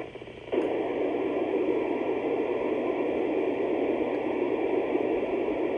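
Icom IC-705 transceiver's speaker hissing with steady FM receiver static from about half a second in. The signal on the ISS repeater's 437.8 MHz downlink has dropped out, so only noise is heard.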